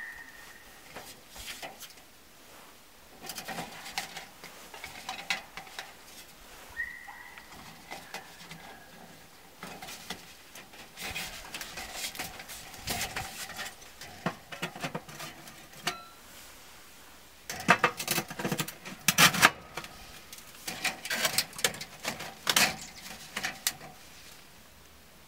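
Flexible corrugated aluminium flue pipe being handled and bent, its thin ridged metal crinkling and clicking in irregular bursts, loudest in two clusters in the second half. A faint short whistle, likely a bird, comes about 7 seconds in.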